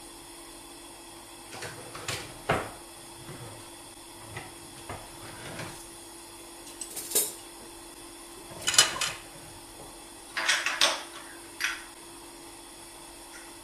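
Kitchenware being handled off to the side: a dozen or so scattered knocks and clinks at uneven intervals, the sharpest near the middle and about two-thirds through.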